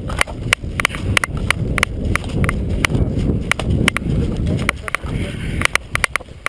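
Rushing movement on a body-worn camera: footfalls and a rough rumble of motion, with a run of sharp clicks about three or four times a second.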